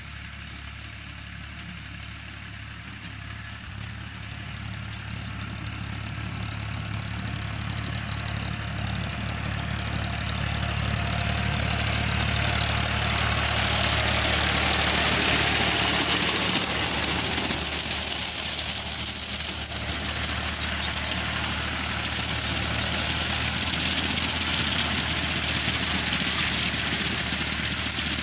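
Powertrac 445 tractor's diesel engine running steadily as it works a paddy reaper, getting louder as it comes close about halfway through and easing a little as it moves off. A higher hiss swells with it as it nears.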